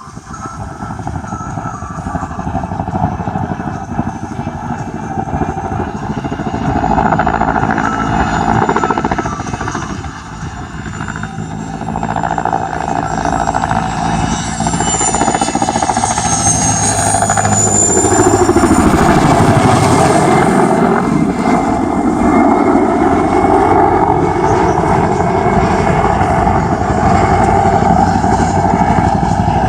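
Mil Mi-2 helicopter's twin turboshaft engines and rotor flying past. A high turbine whine drops in pitch around the middle as it goes by, and the sound grows louder and stays loud through the second half.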